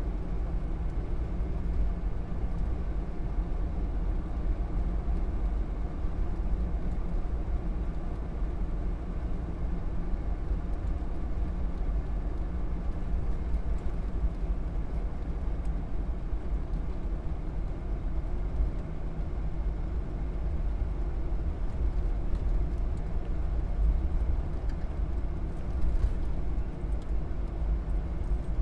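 Car cruising at steady highway speed: a continuous low rumble of engine and tyre noise.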